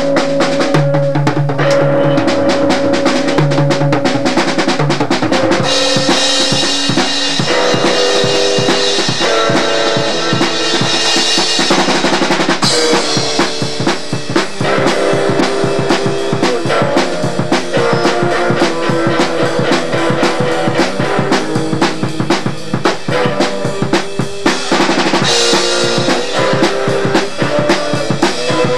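Live drum kit played fast and busy, with bass drum, snare and rimshots, under held notes from another instrument that change pitch every second or so. Cymbals wash over it for several seconds about a fifth of the way in, and again near the end.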